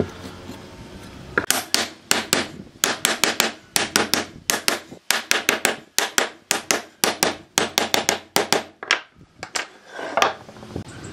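Hammer striking a wooden rail down onto the ends of the slats of a pine frame: rapid sharp knocks, about four a second in uneven runs, that stop shortly before the end. A brief scraping sound follows as the frame is handled.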